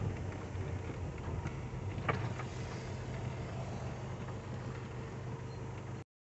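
A motor vehicle's engine running low and steady, with a brief high squeak about two seconds in; the sound cuts off suddenly just before the end.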